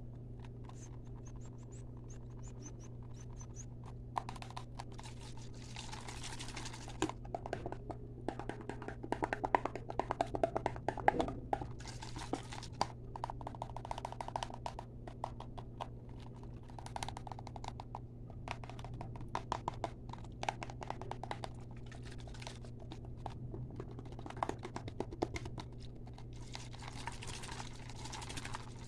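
Fast ASMR tapping, quick runs of sharp taps coming in bursts that start about four seconds in, over a steady low hum.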